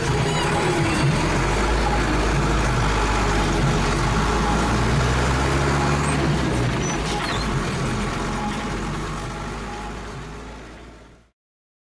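A bus in motion heard from inside the cabin: steady engine drone under road and body noise, fading out over the last few seconds and then stopping.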